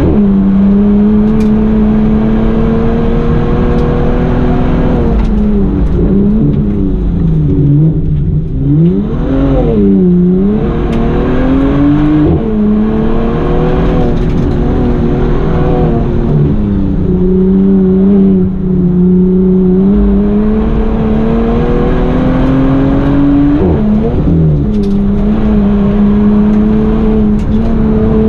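Bentley Continental GT's twin-turbo W12 engine under hard hill-climb driving, heard on board. The engine pitch climbs and falls steadily with throttle and gear changes, with quick sharp dips and rises around a third of the way in and again near the end as the car brakes and shifts for bends.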